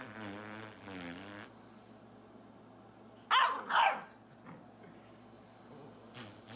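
A dog growling low, then two loud barks about half a second apart, then growling again near the end.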